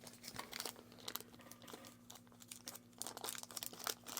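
Faint, scattered small clicks and rustles of small watch parts being handled by hand, over a steady low hum.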